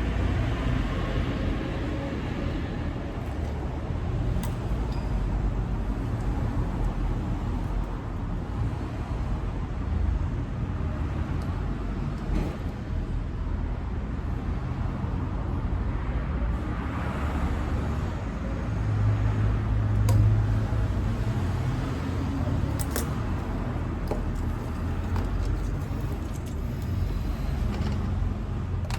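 Steady low rumble, like an engine or traffic, that swells louder about twenty seconds in, with a few faint clicks over it.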